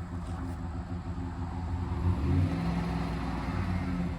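Van engine running, its pitch rising about two seconds in and then holding steady at the higher revs. The van's automatic transmission slips as it gets into second gear.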